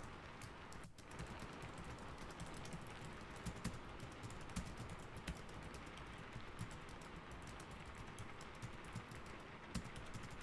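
Computer keyboard typing, a steady patter of key clicks, over an even hiss of rain: a rain-and-keyboard ambience track.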